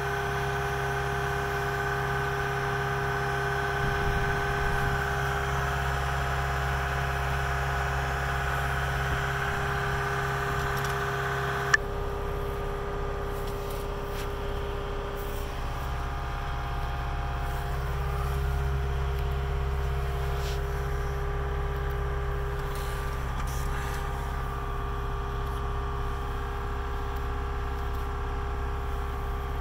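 Cat 279D compact track loader's diesel engine running steadily, heard from inside the cab as a constant hum. A sharp click about twelve seconds in, after which some of the higher tones in the hum drop away.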